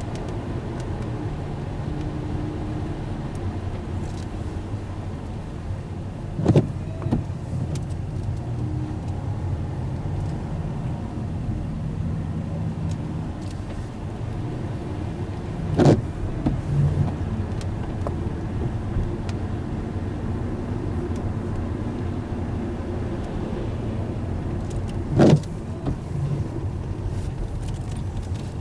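Steady car-cabin noise from the engine and the tyres on wet pavement while driving, heard from inside the car. Three brief sharp knocks come at even intervals of about nine seconds.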